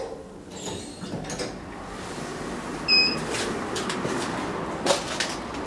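Elevator doors at the end of a ride on an SMW machine-room-less elevator, with the door being pushed open and someone stepping out of the cab: a few light clicks, a loud clunk about three seconds in with a short high tone, then a steady noise from outside and a sharp click near the end.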